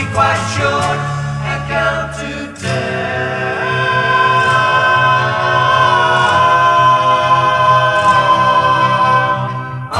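1960s beat-pop record with male group vocals: the band plays a rhythmic passage, then about two and a half seconds in the voices hold a long harmonised chord over a steady bass pulse, dipping just before the end.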